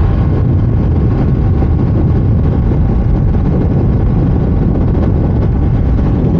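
KTM Duke 390's single-cylinder engine running steadily at cruising speed, around 80 to 85 km/h, heard as a loud, even low rumble while riding.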